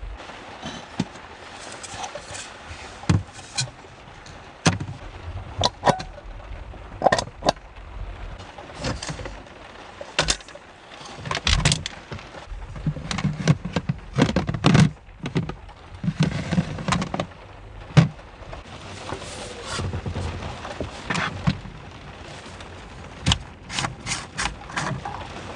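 Irregular knocks, clicks and scrapes, as of objects being handled and set down, over a low rumble.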